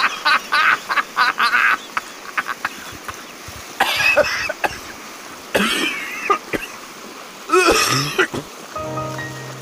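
Short bursts of people's voices, coughs or exclamations without words, over footsteps splashing through a shallow rocky stream. Background music with steady held notes comes in near the end.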